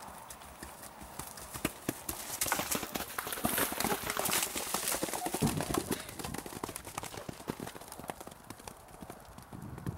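Horses' hooves striking soft turf at a canter: a rapid, uneven run of thuds that is loudest through the middle.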